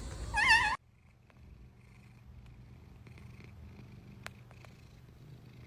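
A short wavering meow cuts off abruptly under a second in, followed by a cat purring steadily and softly, with a couple of faint clicks.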